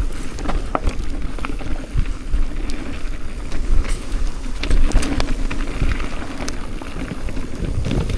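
Mountain bike descending a downhill trail: a steady rumble of tyres over dirt and wind, with frequent sharp clicks and knocks from the bike rattling over rough ground.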